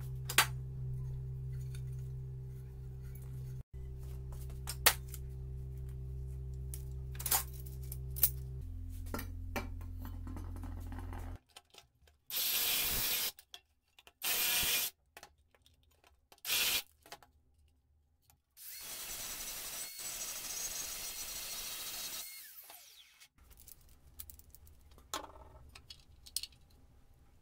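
Metal pieces clinking over a steady low hum. Then an electric power tool, an angle grinder by the look of it, runs in three short bursts and once for about four seconds before winding down, followed by light clicks of the metal wheel being handled.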